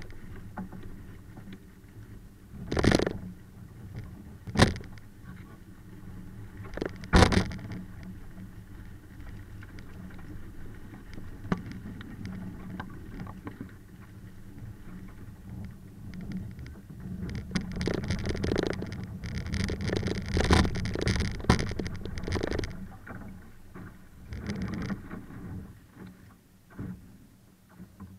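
Laser sailing dinghy under way in choppy water: three sharp knocks of the hull in the first eight seconds, then a louder stretch of rushing, splashing water a little past the middle.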